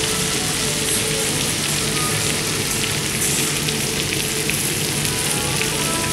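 Melted butter frying around beef tenderloin pieces in a cast-iron pan: a steady sizzle with small pops.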